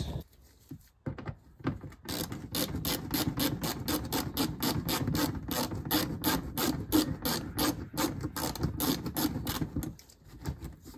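Quarter-inch drive ratchet clicking rapidly, about five clicks a second, as it turns a screw out. The clicking starts about two seconds in and stops near the end.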